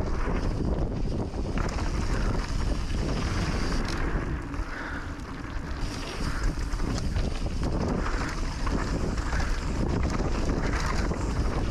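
Wind buffeting the action camera's microphone as a mountain bike rolls fast down a dirt trail, with tyre noise and rattling over the ground. It eases off briefly about halfway through.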